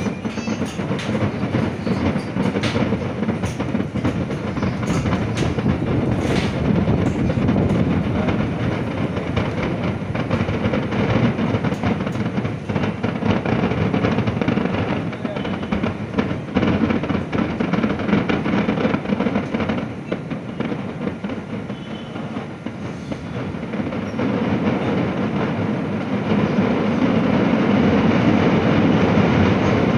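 A massed firecracker barrage from a Kerala temple fireworks display (vedikkettu): countless crackers going off in a dense, unbroken rattling rumble that swells louder near the end.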